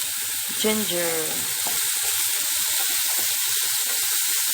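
Garlic and onion frying in hot olive oil in a pan: a steady sizzle.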